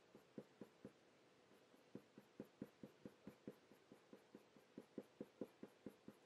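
Faint scratching of a Faber-Castell Polychromos coloured pencil on hot-press watercolour paper, laid down in quick short fur strokes at about five a second, with a pause about a second in.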